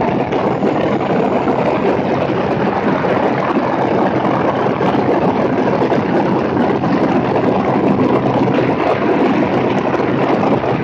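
Steady rush of airflow buffeting a camera microphone on the wing tip of a Cessna 210 in flight, with the low, even drone of the aircraft's engine and propeller underneath.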